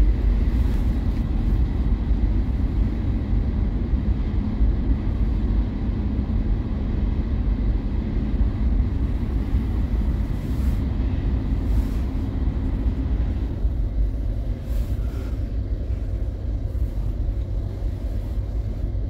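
Steady low rumble of a regional express train in motion, heard from inside the passenger carriage: wheels running on the rails with the carriage's running noise. It eases slightly near the end.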